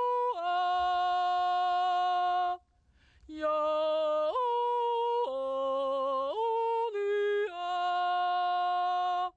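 A woman yodeling a wordless Swiss Naturjodel: long held notes with sudden leaps between chest voice and head voice. The yodel breaks off briefly about two and a half seconds in, then resumes and ends on a held note.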